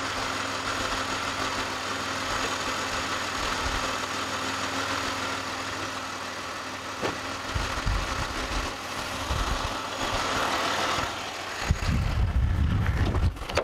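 A car engine idling steadily while it boosts another car's flat battery through jumper cables, with low rumbling thumps about seven seconds in and again near the end.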